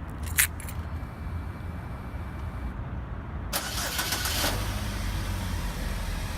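Chevy Captiva engine being started by a remote starter. A sharp click comes near the start, then the starter cranks for about a second from about three and a half seconds in, and the engine catches and settles into a steady idle.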